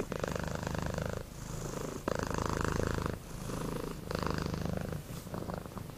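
Domestic cat purring close up, a continuous pulsing purr that swells and eases with each breath, about once a second.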